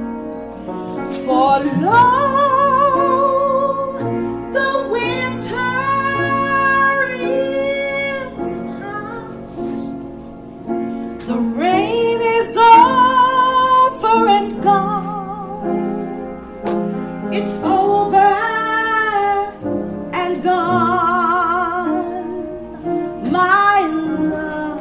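A woman singing solo, holding long notes with a wide vibrato in several phrases, with brief breaths between them.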